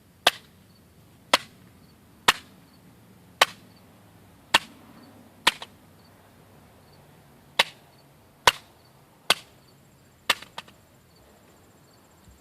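A mobile phone being slammed against the ground again and again: about ten sharp, short knocks, roughly one a second, with a pause partway through.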